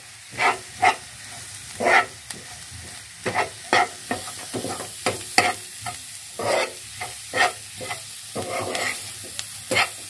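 A metal spatula scraping and stirring onion-tomato masala as it fries in a black pan, in irregular strokes roughly one or two a second over a steady sizzle.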